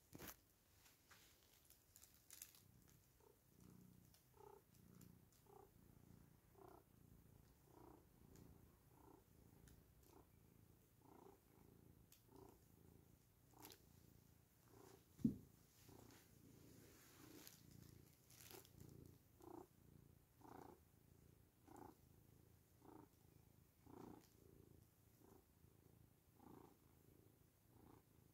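Domestic cat purring softly and steadily while its head and face are rubbed, the purr pulsing in an even rhythm. A single sharp knock comes about halfway through.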